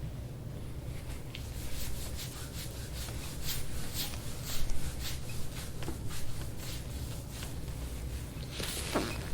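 Hands rubbing and working over a patient's skin and clothing during chiropractic soft-tissue work: a run of soft scuffs and short clicks, loudest about halfway through, with a brief breathy rush near the end, over a steady low hum.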